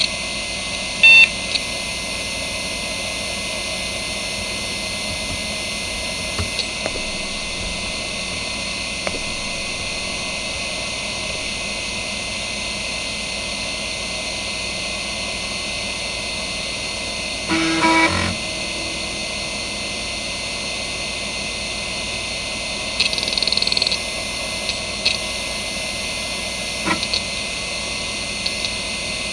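Seagate ST9144A three-platter 2.5-inch IDE hard drive spinning steadily at 3450 rpm, a continuous whine with hiss. Brief bursts of head-seek chatter break in several times; the longest cluster, about four-fifths of the way through, is the drive initialising once the controller addresses it.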